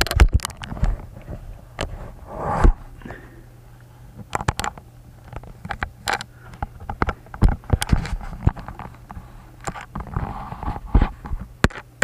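A 140 mm plastic computer case fan handled and positioned against a PC case: irregular sharp clicks, knocks and scraping.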